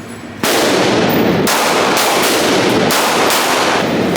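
Gunfire at a shooting range: a quick, uneven string of shots starting about half a second in, each echoing into the next.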